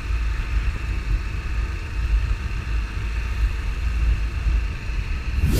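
Honda NX400 Falcon's single-cylinder engine running while the motorcycle rides along a wet road, under a heavy, steady wind rumble on the camera's built-in microphone. A short whoosh comes just before the end.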